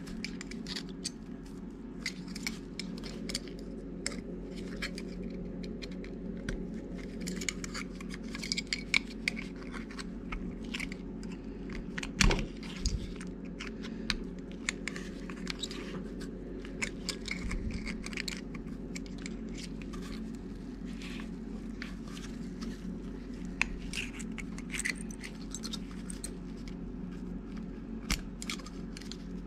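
Wire hook tool scraping and clicking against metal inside the valve ports of an FMC John Bean R10 pump head, working at screens set deep in the ports, with one louder knock about twelve seconds in. A steady hum runs underneath.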